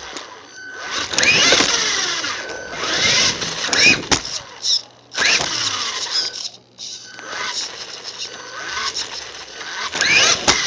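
Duratrax Evader EXT2 RC truck's Velineon brushless electric motor whining in repeated throttle bursts, its pitch sweeping up with each one, over tyre and drivetrain noise.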